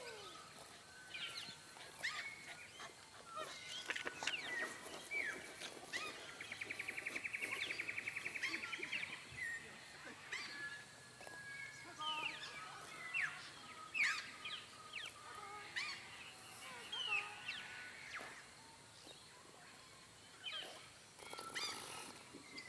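Several birds calling: scattered short whistled notes and quick sweeping chirps, with a rapid buzzy trill lasting about three seconds starting about six seconds in.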